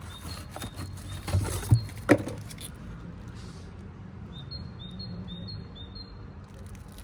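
A small bird chirping repeatedly in short high notes, in two runs, with three sharp knocks from handling parts between about one and two seconds in over a steady low hum.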